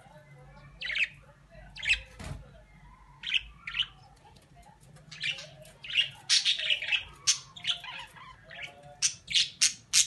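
Budgerigar chirping and squawking in short, sharp calls, a few at first, then coming quickly one after another in the second half.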